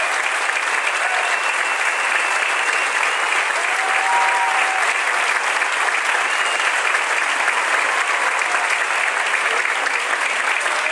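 A large audience applauding steadily, with a few short voices calling out over the clapping.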